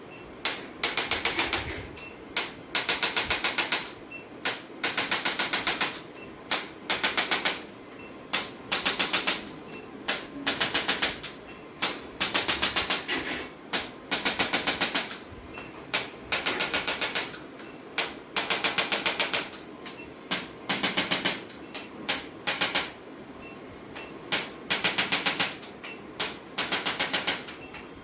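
Rapid mechanical clicking in short bursts, about one burst a second, each burst a fast run of sharp ticks.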